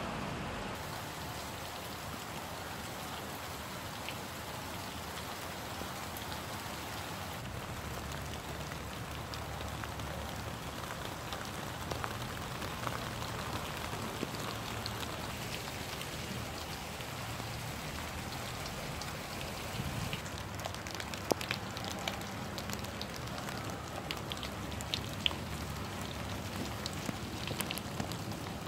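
Rain falling steadily, with sharper individual drop hits scattered through it, more frequent near the end.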